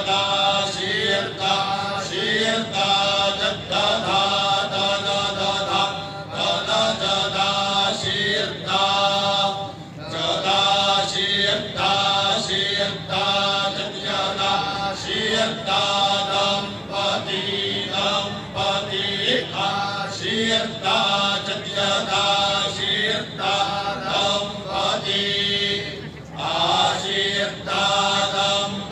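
A group of male voices reciting Vedic mantras in unison, a steady accented chant that runs on without a break.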